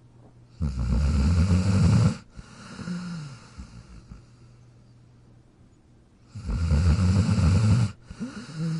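Dog snoring in its sleep: two loud snores about six seconds apart, each about a second and a half long and followed by a softer breath out.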